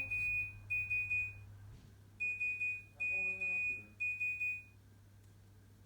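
Nokia 1650 mobile phone playing a beeping ringtone: a single high tone repeated in short beeps, in groups of three with a brief pause between groups.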